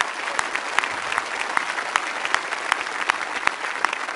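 Crowd applauding steadily, with one person's sharper, louder claps close to the microphone standing out, about two to three a second.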